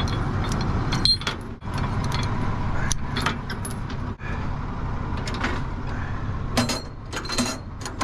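Trailer safety chains and clevis hooks clinking and rattling as they are hooked to a truck's hitch, with a string of sharp metallic clicks over a steady idling engine.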